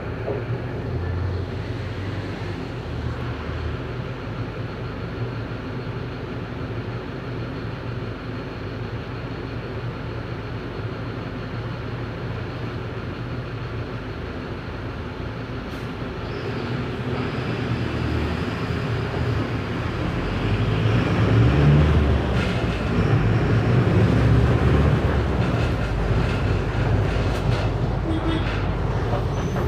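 Diesel engine of a Mercedes-Benz OF 1519 city bus (Marcopolo Torino body) running on the move, with a steady rumble and body rattle. It grows louder a little past halfway and is loudest in the last third.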